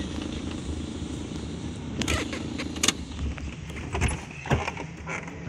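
Steady rumble of a car driving, heard from inside the cabin, with several sharp knocks and rattles in the second half.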